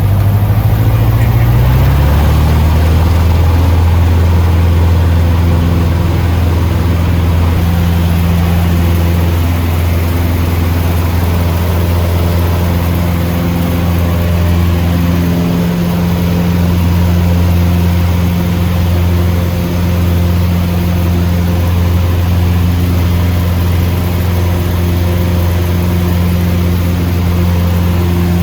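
Cessna 150's four-cylinder air-cooled Continental O-200 engine and propeller speeding up over the first two seconds, then running loud and steady at high power.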